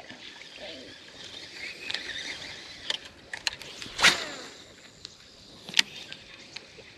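A few sharp clicks and knocks over a quiet outdoor background. The loudest comes about four seconds in and is followed by a short falling tone; another strong click comes near six seconds.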